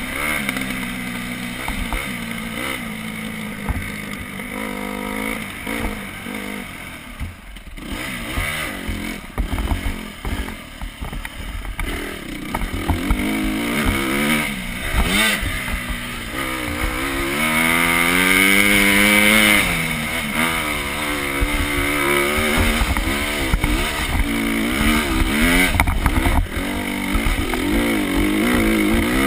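Dirt bike engine running under a rider on a trail, its revs rising and falling with the throttle; about two-thirds of the way through the revs climb and hold high for a couple of seconds before dropping back.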